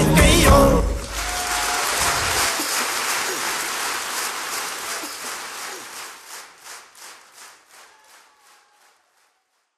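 Music ends about a second in, then applause with some voices in it fades out, the last scattered claps trailing off.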